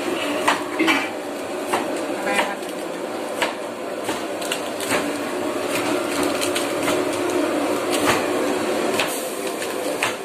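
Irregular clicks and knocks of a plastic serving spoon and clear plastic food boxes being handled on a stainless steel table as food is portioned into them, over steady background noise.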